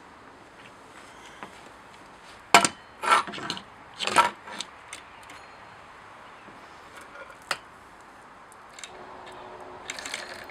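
A Stihl 020 chainsaw set down and shifted on a stone slab: a sharp knock, then a few clattering knocks over the next two seconds, and one more click later. Near the end a light metallic rattle starts as the loose saw chain is handled.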